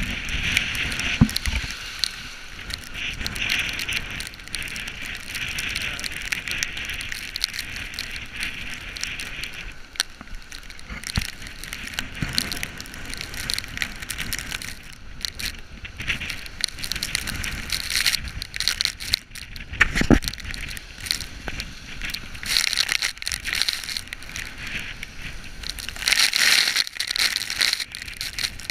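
Storm wind and rain lashing a handheld action camera: a steady crackling hiss, with a few low thumps of wind buffeting, one about twenty seconds in. It grows louder for a stretch near the end.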